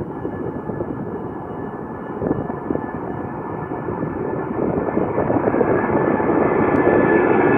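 Four Rolls-Royce RB211-524H turbofans of a Boeing 747-436 at take-off power during its take-off roll: a heavy rumble with a steady high whine, growing steadily louder as the jet comes nearer.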